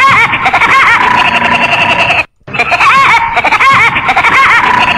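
A short recorded segment jingle of high-pitched laughing voices, played twice in a row with a brief gap just after two seconds.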